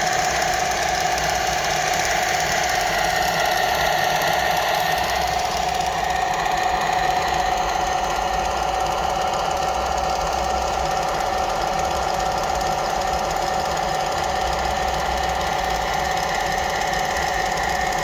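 Heng Long RC tank switched on with its smoke unit running: a steady, fast mechanical buzzing rattle that holds evenly throughout.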